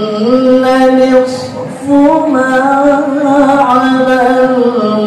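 A man reciting the Qur'an in the melodic tilawah style, holding long ornamented notes that step and waver in pitch, with a short break for breath a little before two seconds in.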